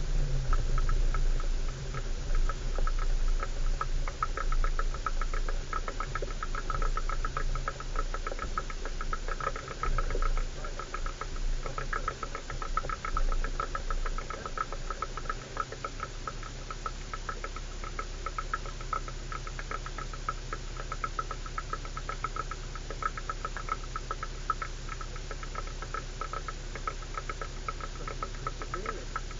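A 4x4's engine running with the cabin rattling and knocking as the vehicle drives over a rough, muddy off-road track. The jolting is louder and more uneven for the first half, then settles to a steadier, quieter run.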